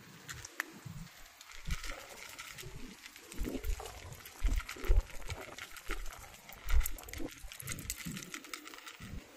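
Two cats crunching dry kibble from a shallow plate: a dense, irregular run of small crunches and clicks, with a few heavier low thumps mixed in.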